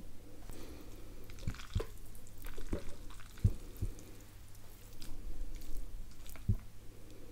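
Wet, squishy sounds of a fork twirling and lifting creamy spaghetti carbonara in a ceramic bowl, with about half a dozen sharp clicks of the fork against the bowl.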